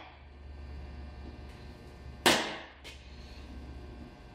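A center punch strikes once into the steel fender panel about two seconds in, a sharp snap with a short metallic ring, followed by a fainter click. Each strike marks a hole location for the pilot drill.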